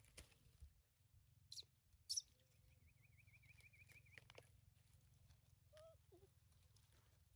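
Near silence outdoors: two sharp clicks, then a warbling high trill lasting under two seconds, and two short chirps near the end.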